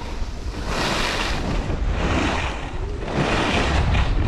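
Wind rumbling on the microphone of a skier moving downhill, with three swells of hiss as the skis scrape and carve through turns on groomed snow.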